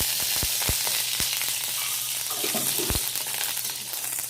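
Spoonful of mustard oil sizzling and crackling as it heats in an iron kadhai, with a few dull knocks in the first second and again about three seconds in.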